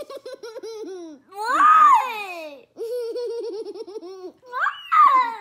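A young girl giggling in quick, pulsing bursts of laughter, breaking twice into loud high squeals, about a second and a half in and near the end.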